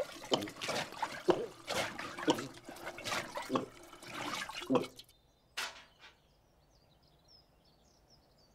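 Cartoon sound effect of water poured from a bucket through a funnel into a sheep's mouth: gurgling with a quick run of gulps that stops about five seconds in, followed by one short last gurgle. Then near quiet with a few faint high chirps.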